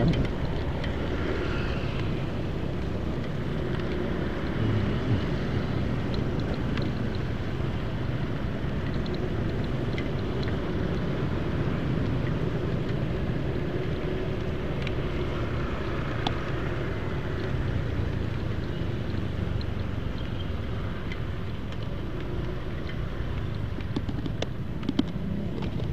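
Honda Vario 125 scooter riding along with its engine running steadily under a constant rush of wind and road noise.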